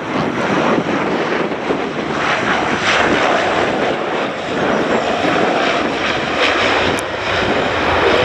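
The four Ivchenko AI-20 turboprop engines of an Antonov An-12 running steadily as it passes low on its landing approach and flares over the runway.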